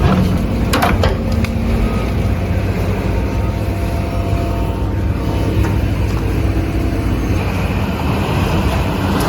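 Heavy diesel machinery, such as an excavator's engine, running steadily with a low rumble, with a couple of sharp knocks in the first second.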